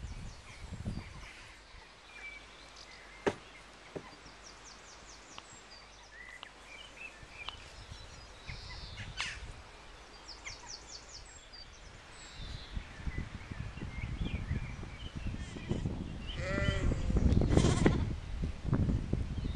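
A sheep bleats once near the end, a single wavering call, over a low rumble of wind on the microphone. Small birds trill faintly earlier on, and there are two sharp clicks a few seconds in.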